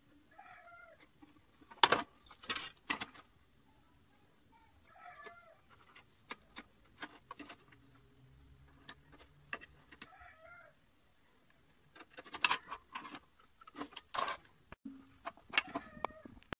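Sharp knocks and clatters of wooden pieces and a square being handled and set down on a metal table-saw top, loudest about two seconds in and again near the end. An animal calls faintly in the background three times, short bending calls.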